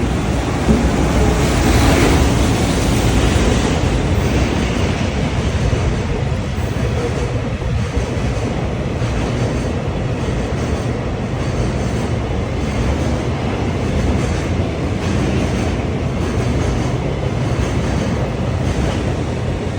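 Freight train hauled by an EF210 electric locomotive rolling past, a loud steady rumble. From about a third of the way in, wheels clack in a regular rhythm over the rail joints.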